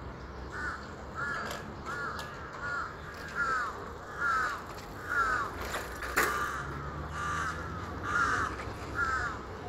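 A crow cawing over and over, about a dozen short caws that each drop in pitch, coming a little faster than one a second. There is a single sharp click about six seconds in.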